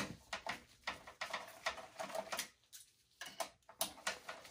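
Screwdriver backing out the screws on a graphics card's mounting bracket in a PC case: a run of faint, quick, irregular metal clicks, with a short pause about two and a half seconds in.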